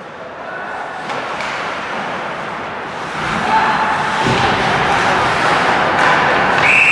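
Ice hockey game noise, with players and spectators' voices and rink sounds, growing louder about halfway through. Near the end a referee's whistle blows one long, steady note, stopping play for a faceoff.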